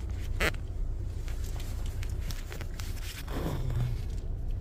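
Steady low rumble of a car driving slowly on an icy, snow-covered mountain road, heard from inside the cabin. Two sharp clicks right at the start and a short falling tone about three and a half seconds in.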